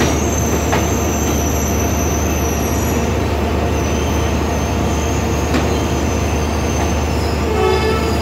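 Passenger train coaches rolling slowly into a station, their wheels squealing with thin high steady tones over a low rumble. A couple of sharp clicks come from the wheels passing rail joints.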